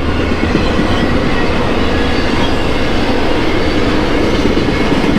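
Union Pacific freight train rolling steadily past at close range, its cars' wheels running on the rails. Its two mid-train diesel locomotives are passing at the same time.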